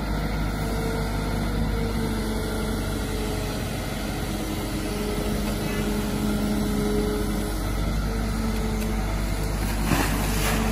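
Kobelco SK200 hydraulic excavator working: the diesel engine runs steadily under load, with a tone that shifts as the boom, arm and bucket dig and lift mud. A short knock comes near the end.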